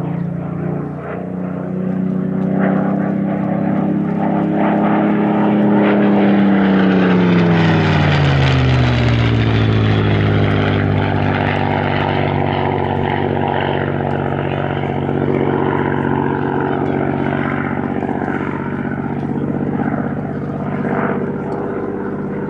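Spitfire PR XI's Rolls-Royce Merlin V12 engine running on a low flypast. It gets louder as the aircraft approaches, then drops sharply in pitch as it passes about eight seconds in, and carries on at a lower, steady pitch as it draws away.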